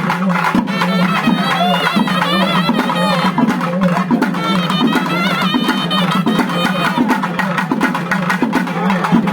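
Traditional Tamil festival music: fast, dense drumming over a steady low drone, with a wavering high melody line in two phrases.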